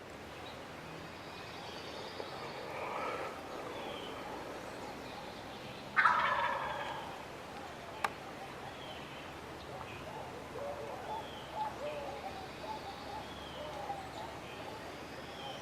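Wild turkey gobbler gobbling in the distance: a fainter gobble about three seconds in and a louder, rattling one about six seconds in. Small birds chirp faintly in the background.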